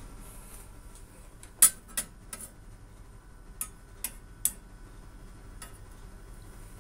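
Scattered sharp ticks over a faint steady hiss, from a thin aluminium plate with oil drops being heated over a low gas-stove flame. There are about seven ticks, mostly in quick groups of two or three.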